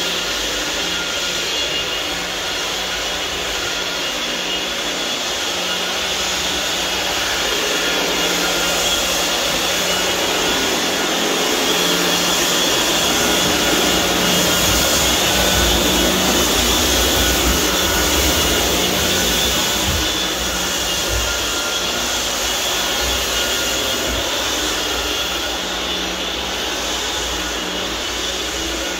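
Electric floor-sanding machine running steadily on a hardwood floor, a continuous motor and fan rush with a steady whine, growing slightly louder in the middle.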